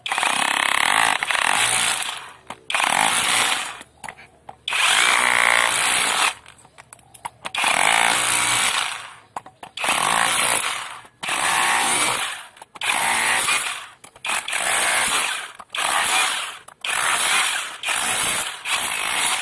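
Cordless brushless SDS rotary hammer (OSUKA OSRH-26) in hammer-only chisel mode, a flat chisel bit pounding and breaking up a concrete slab. It runs in about a dozen short bursts of a second or two, with brief pauses between.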